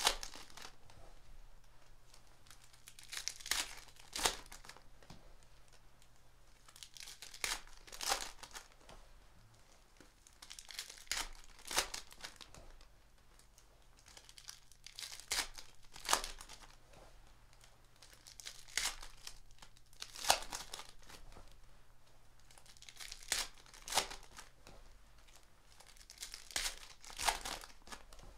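Foil trading-card pack wrappers (Panini Prizm retail packs) being torn open and crinkled. Each pack is a short burst of tearing and rustling, repeating about every four seconds.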